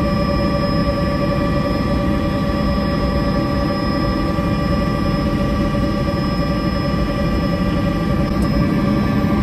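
Turbine helicopter in steady flight heard from inside the cabin: constant engine and rotor noise with a steady whine over a low rumble.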